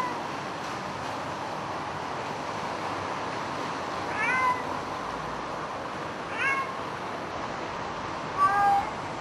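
Domestic cat meowing repeatedly: the end of one call right at the start, then three more short calls about two seconds apart, each rising and then holding its pitch. It is a cat left alone in a neglected flat, crying for days.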